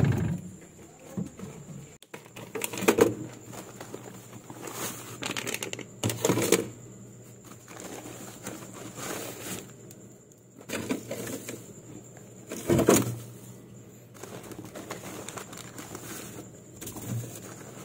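Plastic-wrapped frozen food packs rustled and set into a plastic freezer drawer, with a few louder knocks and crinkles, over a steady low hum.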